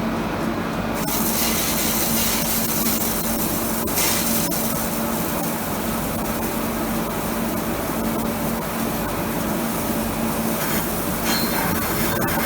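Toshulin SKIQ-8 CNC vertical turret lathe running: a steady hum under a hiss that grows louder about a second in, with a few short clicks.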